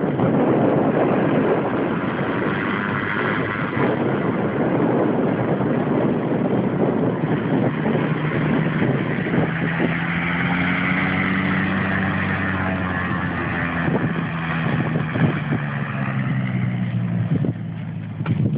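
Cessna 185 Skywagon's engine and propeller at takeoff power on a short takeoff roll. It passes close by about ten seconds in, and its steady drone then drops slightly in pitch as the plane moves away.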